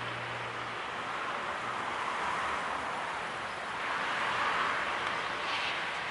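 Steady rushing outdoor noise, with a low hum at the start and swells about four seconds in and again near the end.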